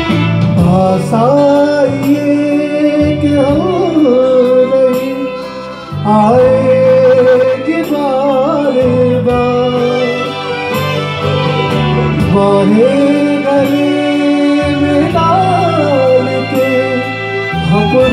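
Live band playing an instrumental interlude of a Hindi film song: a violin carries a sliding, ornamented melody over keyboard, guitar and a steady pulsing bass line.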